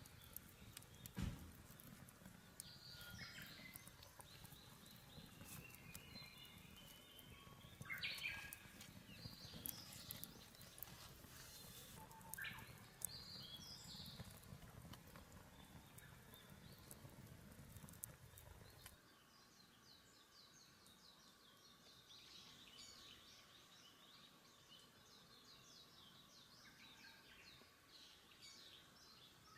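Faint outdoor ambience of birds chirping and calling, in scattered short calls that come thick and fast in the second half, with a few sharp clicks. A low rumble underneath stops about two-thirds of the way through.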